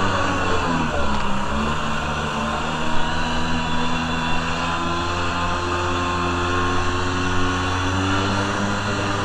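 Kawasaki JS440 stand-up jet ski's two-stroke twin engine running under way; its pitch drops about a second in, then holds fairly steady.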